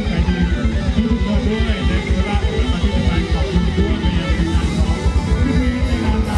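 Live band playing Thai ramwong dance music over a PA, with a steady beat.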